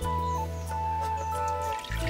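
Background instrumental music with held melody notes over a steady bass. Hot water from a clay kettle trickles faintly into a clay bowl beneath it near the end.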